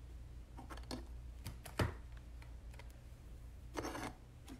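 A few light clicks and taps about a second in, then a brief rustle near the end, over a steady low hum.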